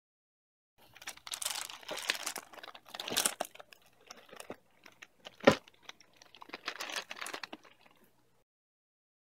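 Paper, cardboard and plastic packing of a live-fish shipping box being handled and pulled apart: crinkling, rustling and tearing in bursts, with one sharp knock about halfway through. It starts about a second in and stops about a second before the end.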